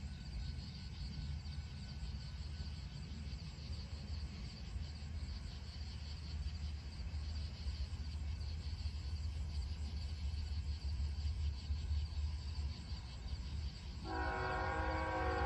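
Low rumble of an approaching GE ES44C4 diesel locomotive, growing slowly louder. About fourteen seconds in, its Nathan K5HL five-chime air horn starts sounding, a loud chord of several notes held steady.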